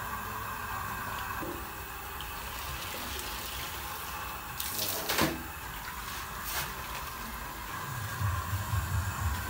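Water splashing and dripping as dyed cloth is lifted out of a dye vat with a paddle, over a steady sound of water. There is a sharp knock about five seconds in and a low rumble near the end.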